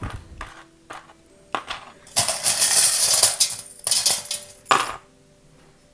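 Small metal charms and pebbles clinking and rattling together in a tray as a hand rummages through them: scattered clicks, with a dense shaking rattle about two seconds in lasting a little over a second, and another sharp clink near the end.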